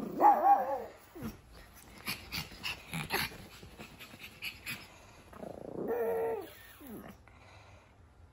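Pug puppy making growly, whiny noises in two bouts, one at the start and another about six seconds in, with a few short sharp sounds between.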